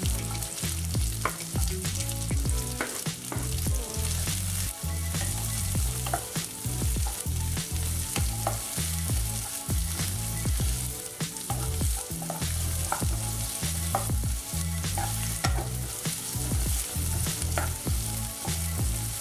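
Onions, garlic and diced carrot sizzling in ghee in a non-stick kadhai, with a wooden spatula scraping and knocking against the pan as they are stirred. A low, uneven rumble runs underneath.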